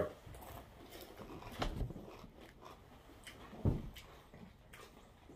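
A person quietly chewing a Paqui One Chip Challenge tortilla chip, with a couple of faint crunches about one and a half and three and a half seconds in.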